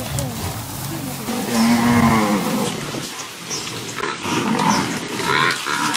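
African buffalo bellowing: low, drawn-out calls, the loudest about two seconds in, followed by jumbled animal noise.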